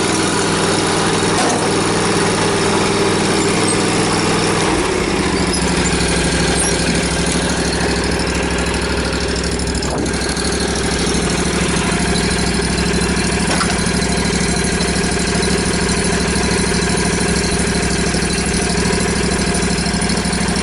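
Exmark Turf Tracer walk-behind lawn mower engine running steadily. About five seconds in, the note shifts and a deeper low drone comes in and holds.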